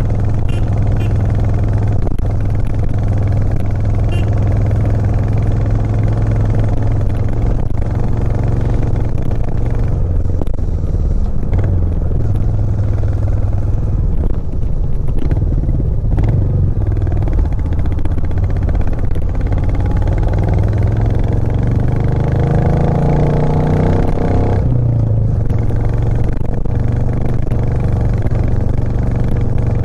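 Royal Enfield Classic 350's single-cylinder engine running under way, heard from on the motorcycle. Its pitch climbs steadily through the second half as the bike accelerates, then falls back sharply about five seconds before the end and holds steady again.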